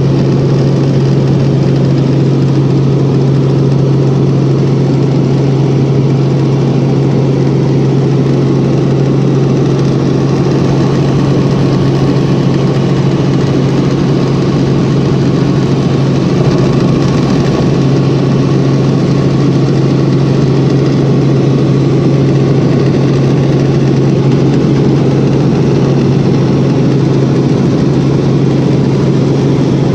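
Helicopter heard from inside the cabin in steady flight: a loud constant low hum from the engine and rotors over a broad rushing noise, unchanging throughout.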